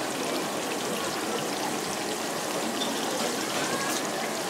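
Seafood deep-frying in a large wok of hot oil, a steady bubbling sizzle with fine crackling.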